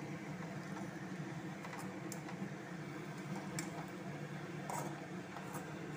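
Metal spoon scraping and clicking against the inside of an aluminium kadai as spices are stirred, a few sharp clicks over a steady low hum.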